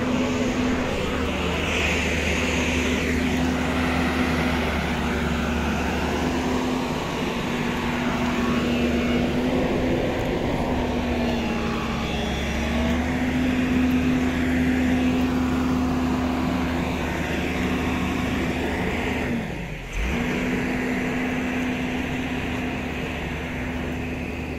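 JCB JS 215 tracked excavator's diesel engine running steadily, a constant drone with a low hum beneath it; its pitch sags slightly about twelve seconds in and briefly drops out just before twenty seconds.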